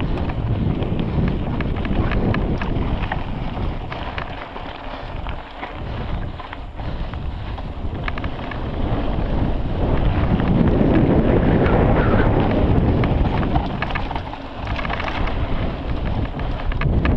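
Wind buffeting the camera microphone of a mountain biker riding at race speed, with scattered clicks and knocks from the bike and trail. The rumble swells louder for a few seconds past the middle.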